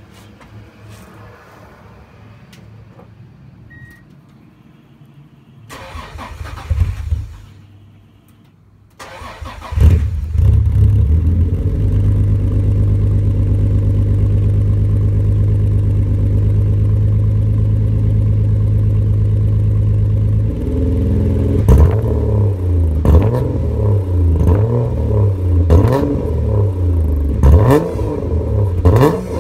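Subaru EG33 3.3-litre flat-six engine breathing through a custom catless 2-into-1 exhaust with a 3-inch resonator and a repacked Cobb muffler. It starts about nine seconds in and idles steadily. From about twenty seconds in it is revved in repeated short blips.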